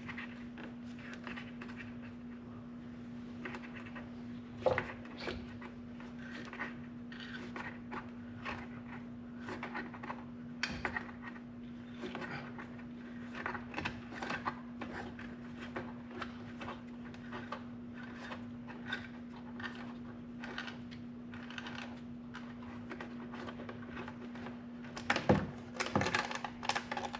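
Scattered small clicks, scrapes and light rattles of hands working the headlight adjustment screw out from behind a UTV's plastic headlight housing, over a steady low hum. A louder cluster of clicks and knocks comes near the end.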